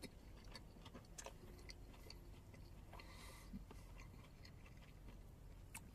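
Near silence with faint, scattered mouth clicks of someone quietly chewing a bite of food.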